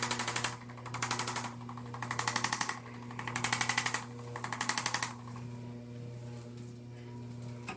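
Electric percussion massager working the lower back muscles. It gives about five half-second-to-one-second bursts of rapid hammering, roughly once a second, over the steady hum of its motor. The hammering stops about five seconds in, and the motor hum cuts off just before the end.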